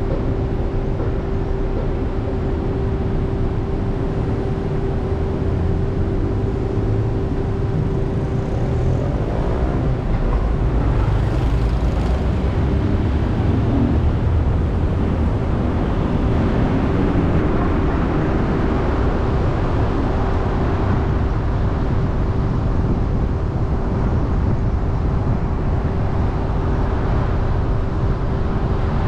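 A car idling at a stop with a low rumble and a steady hum, then moving off about ten seconds in, with tyre and road noise building as it drives on.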